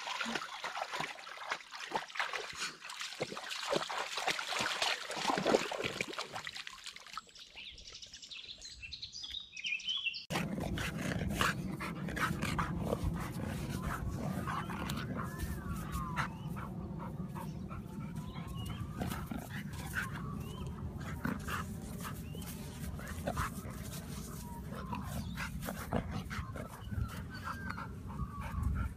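A dog splashing through a muddy, water-filled rut for about the first ten seconds. Then, after a cut, a dog scrabbling in a dirt hole, whining in rising and falling tones over a low steady rumble and scattered scratchy clicks.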